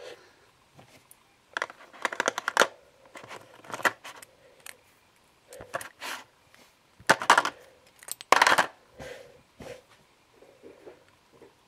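Packaging being handled while unboxing: several bursts of crinkling, clicking rustle, loudest near the start and again about two-thirds of the way in.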